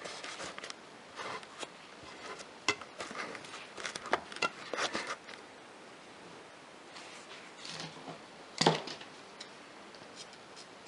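Hands handling satin ribbon and sewing tools on a table: soft rustles and small clicks, with one louder sharp clack about two-thirds of the way in. Scissors cut the ribbon near the end.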